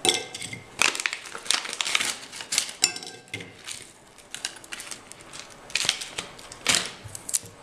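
Foil MRE ration packets crinkling and rustling as they are handled, in a run of short irregular crackles with a quieter stretch in the middle.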